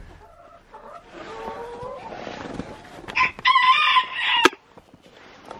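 Chickens vocalizing: soft clucking, then one loud held call of just over a second about three seconds in. A sharp click comes right after it.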